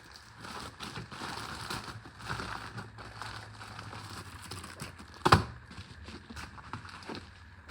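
Packaging rustling and crinkling as it is handled and opened, with scattered small clicks and one sharp, loud snap about five seconds in.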